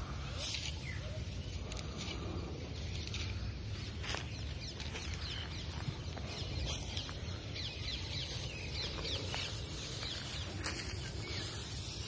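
Outdoor ambience: a steady low rumble, like wind on the microphone, with faint bird chirps and a few scattered clicks.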